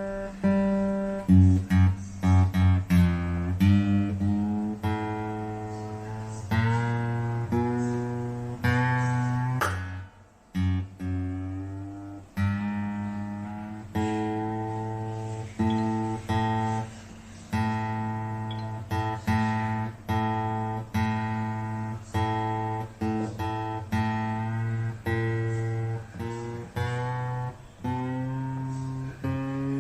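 Acoustic guitar played in chords, struck roughly once a second and left to ring out, with a short break about ten seconds in.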